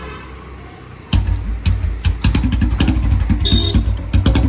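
Vehicle running with a heavy low rumble and many knocks and rattles. The rumble comes in loudly about a second in, and a short high-pitched tone sounds a little past the middle.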